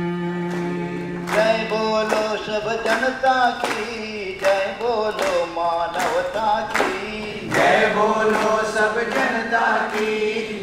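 A man's voice leads a song, with other voices joining in. It opens on a long held note; about a second in, hand claps come in, keeping the beat about twice a second under the melody.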